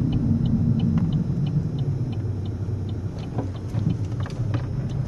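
Car interior noise while driving fast over a rough road: a steady low rumble of tyres and engine. A faint, regular ticking, about three a second, runs through the first half.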